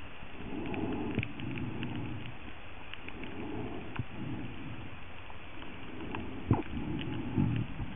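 Muffled underwater sound: low rumbling swishes of moving water that swell and fade every second or two, with scattered sharp clicks.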